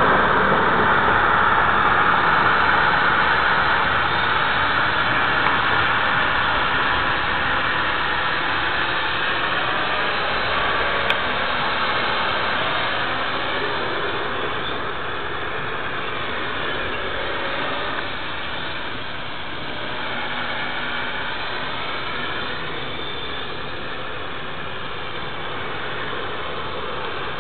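Quadcopter drone's propellers whirring and whining, the pitch rising and falling as it manoeuvres, growing gradually fainter. A single faint click comes about eleven seconds in.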